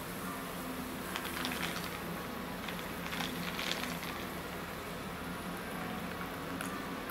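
Ice cubes clinking and rattling in a plastic cup of iced fizzy drink as it is picked up, in two short bursts over a steady fizzing hiss, with a low hum from the room.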